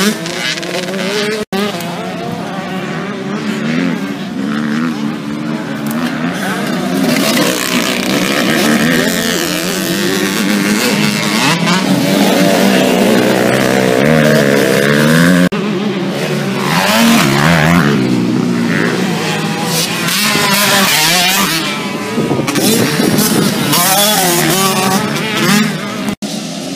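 Several motocross bikes racing, engines revving up and down through gear changes, with more than one engine heard at once. The sound breaks off abruptly three times, about a second and a half in, about halfway through and near the end.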